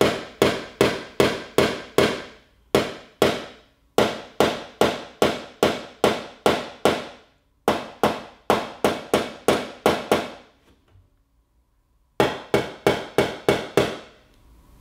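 Quick, light taps of a small ball-face hammer on a car's sheet-metal fender, about four a second in runs, each with a short metallic ring. The taps are knocking down the last small high spots in the panel. They stop about ten and a half seconds in and start again a second and a half later.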